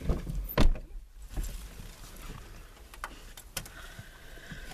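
Thumps and clicks of movement inside a car, the loudest a heavy thump about half a second in, with a few sharp clicks later and a brief thin steady tone near the end.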